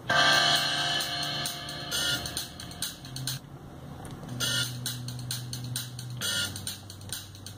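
Music playing from a Pioneer DEH-1280MP car CD receiver. It cuts out for about a second some three and a half seconds in as the track is paused, then resumes.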